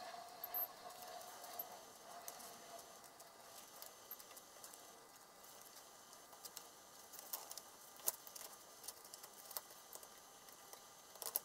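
Faint handling noises: multimeter test probes clicking against connector pins and the wire harness being moved by gloved hands, with a few light clicks scattered throughout.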